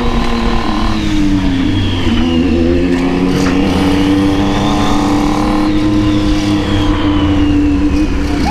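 Motorcycle engine running while riding, heard from the rider's seat over road and wind rumble. The engine note dips about a second and a half in, climbs and holds steady, then eases off near the end.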